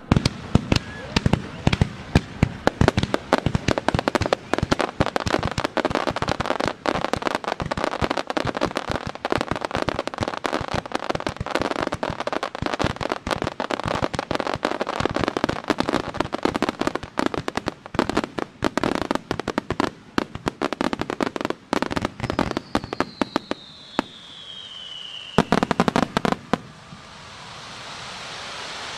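Fireworks barrage: a dense, rapid volley of bangs and bursting shells for about twenty seconds. Then comes one falling whistle, a last short cluster of bangs, and a hiss that swells near the end.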